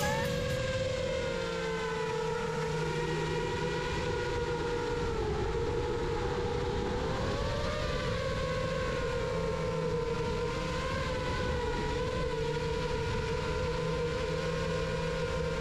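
GEPRC MOZ7 V2 7-inch long-range quadcopter's brushless motors and propellers whining steadily in cruise flight, heard from the onboard camera, the pitch drifting slightly up and down with throttle.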